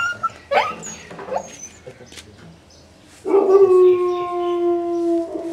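Injured puppy crying in distress as it is handled: a few short rising yelps in the first second or so, then about three seconds in a long, loud howling cry held at one pitch and sinking slightly.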